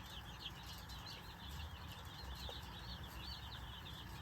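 Many small birds chirping continuously in a dense, overlapping chorus of short high chirps.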